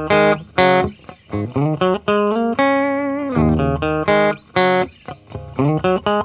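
Intro music played on guitar: a run of plucked notes, with one longer held note in the middle.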